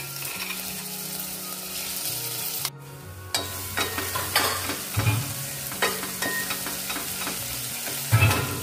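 Ginger garlic paste sizzling in melted butter in a pan while being stirred, with occasional scrapes and knocks of the utensil against the pan. Soft background music with low notes runs underneath.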